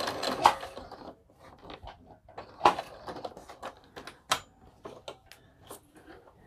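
A Brother sewing machine stops stitching in the first second. Scattered light clicks and taps follow as hands handle the machine and adjust the fabric under the presser foot.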